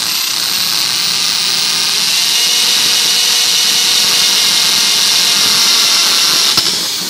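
Electric drill boring a hole through a car's plastic rear bumper, running steadily at high speed with a high whine. Near the end it is released and winds down.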